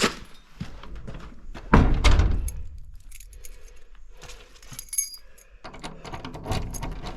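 A bunch of keys jangling among scattered clicks and knocks, with one heavy thud about two seconds in.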